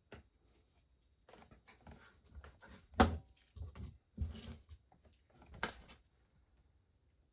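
Tools and parts being handled on a workbench: a string of irregular clicks, knocks and rustles, the sharpest knock about three seconds in.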